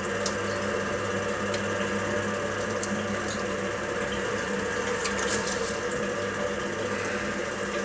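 Potter's wheel spinning with a steady hum while wet clay is centred by hand on it, the water-lubricated clay swishing and rubbing under the hands.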